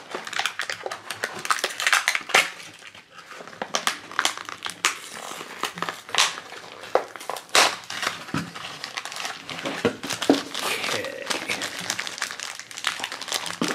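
Plastic packaging crinkling and crackling as a toy blind capsule's clear wrap is torn off and handled, with irregular sharp crackles.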